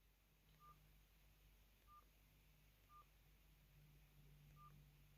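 Four faint, short, single-pitched keypad beeps from a Mobistel EL420 Dual mobile phone as its buttons are pressed, spaced about a second apart.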